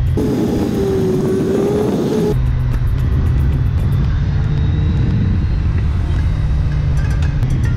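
Motorcycle engine running and wind rush while riding, with background music. For about the first two seconds a louder engine note dips and rises, then cuts off abruptly.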